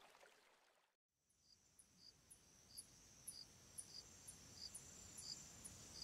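Faint insect chorus: a steady high trill with a short chirp about twice a second. It starts about a second in, after a moment of silence.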